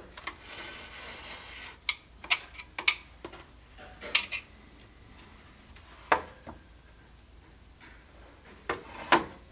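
Paper rustling, then a scattering of sharp knocks and clinks as steel tools, a flat bar and a square, are picked up and set down on a wooden workbench.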